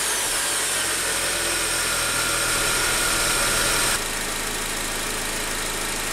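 A 2004 Honda Accord's 2.4-litre four-cylinder engine idling just after being started following an oil change, run so oil fills the new, still-empty filter. It runs steadily, with a high whine that drops out about four seconds in as the level eases slightly.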